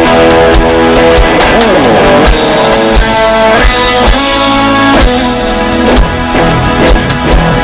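Rock music with electric guitars over a drum kit keeping a steady beat; about a second and a half in, one note wavers and bends downward.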